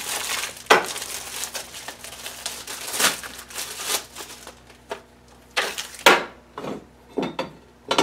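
Paper and plastic packaging crinkling as the tire changer's instruction manual is handled, then a few separate knocks as the red steel base pieces are shifted on the wooden bench.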